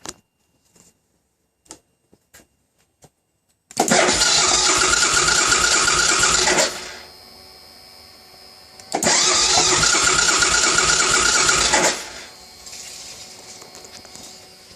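2006 Suzuki Boulevard C90's V-twin cranked on the electric starter twice, about three seconds each time, without catching, with a quieter steady hum between and after the attempts. It is a no-start that began after a Bully fuel processor was installed, while the fuel-injection code reads C00, no defective part.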